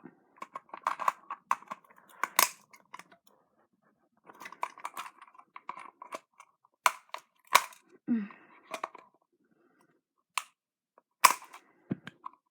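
Hard plastic clicking, creaking and scraping as the shell of a Razer DeathAdder computer mouse is pried and forced apart by hand, with several sharp snaps.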